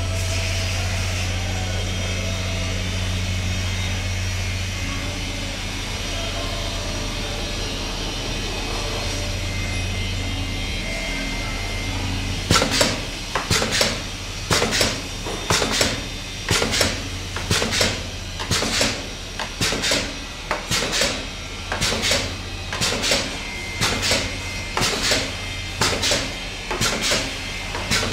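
Automatic tube cutting machine running with a steady low hum. About halfway in it starts cutting the fed tube into lengths, with a sharp chop roughly once a second.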